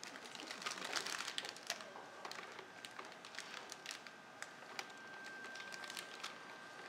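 A rubber spatula scraping gnocchi dough out of a plastic food-processor bowl and into a cloth pastry bag: a run of small scrapes, clicks and taps against the bowl.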